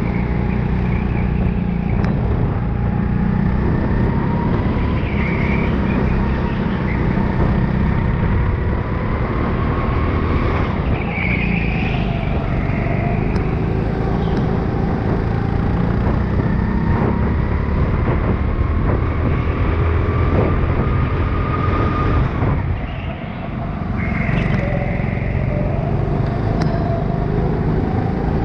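Onboard sound of an indoor racing go-kart driven hard around the track: its motor runs steadily, its pitch rising and falling with speed through the corners. It eases off briefly about twenty-three seconds in, then picks up again.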